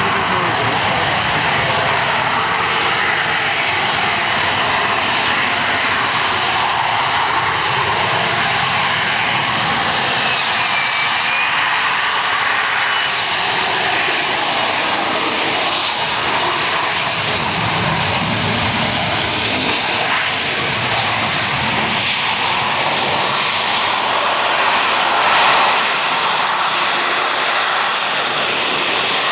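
Harrier jump jet's Rolls-Royce Pegasus vectored-thrust turbofan running loud and steady, a dense jet noise that swells slightly near the end.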